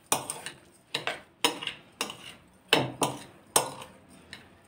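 Metal spoon stirring damp fine bulgur in a glass bowl, clinking and scraping against the glass about ten times at an uneven pace of roughly two a second.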